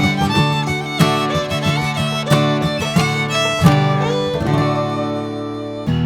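Background music with fiddle and guitar, in a bluegrass or country style, with notes starting about once a second.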